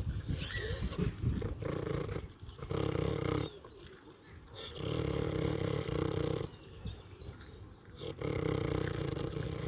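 Pig snoring in slow, regular breaths: long, low snores about three seconds apart, after a rougher, uneven stretch at the start.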